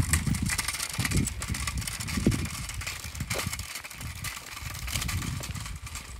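Footsteps crunching on a gravel track, with gusts of wind rumbling on the microphone.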